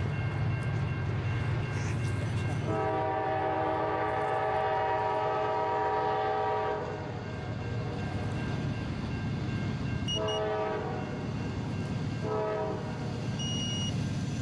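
Norfolk Southern locomotive's air horn sounding its chord as the train approaches: one long blast of about four seconds, then two short ones, with another starting near the end. A steady low rumble runs underneath.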